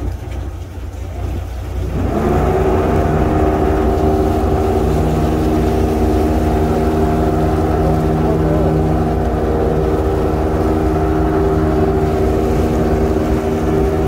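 Fishing boat's engine running at a low rumble, then about two seconds in throttling up with a brief rise in pitch and holding a steady, louder drone.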